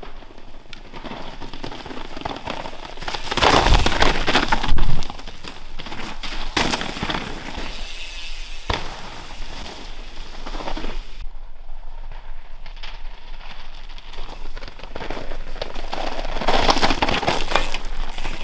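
Specialized Demo 8 downhill mountain bike ridden hard down a rocky trail: tyres crunching and sliding over loose stones and rock, with clattering and clicking of gravel. It is loudest about three to five seconds in and again near the end, as the bike passes close.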